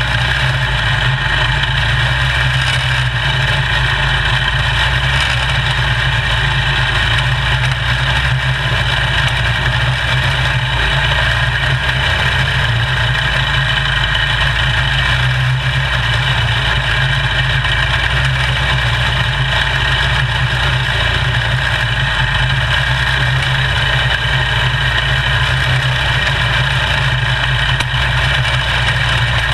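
Quarter midget race car's small engine running under way at a steady pitch with little change, heard close up from a camera mounted on the car.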